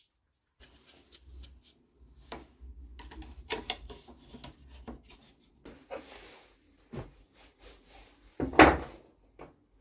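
Handling noises at a workbench: scattered light knocks and rubbing of wooden and metal parts, with one louder knock near the end.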